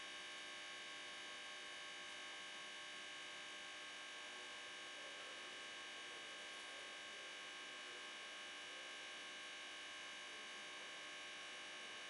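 Faint, steady electrical mains hum and buzz, unchanging throughout, with nothing else heard.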